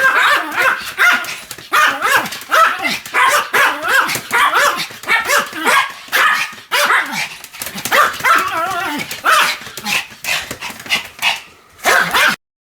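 Pomeranian barking loudly and repeatedly in quick short yaps, about two a second, without a break; the barking cuts off suddenly near the end.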